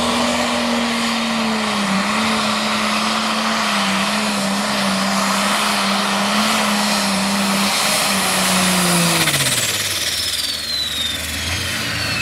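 John Deere pulling tractor's engine running flat out under the load of the sled, its pitch held steady. About eight seconds in, the engine winds down as it comes off the throttle at the end of the pull, and a high whine sweeps down and fades.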